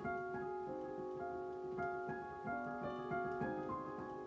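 Digital piano being played: a steady flow of notes over held lower tones.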